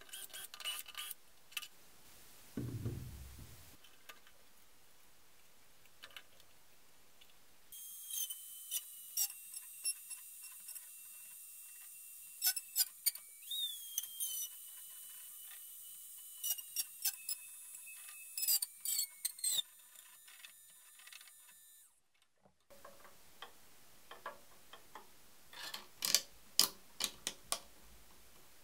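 Scattered sharp clicks and rattles of plastic and metal parts of a 3D-printed jig on steel rods being handled and adjusted, with a short low thump about three seconds in. Through the middle a steady high whine runs under the clicks, and it stops suddenly about two thirds of the way through.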